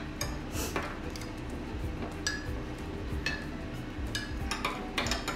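Dishes and cutlery clinking: light, sharp clinks at irregular intervals, several times, over a faint steady hum.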